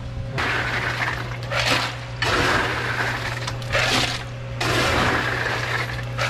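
Salt water poured from a bucket over crushed ice in a cooler, in about four long gushes, making a salt-water ice slurry for the fish. A steady low hum runs underneath.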